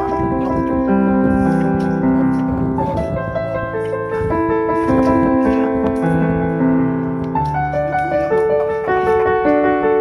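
Background music played on a piano-like keyboard: a melody of changing notes over low bass notes held for a second or two each.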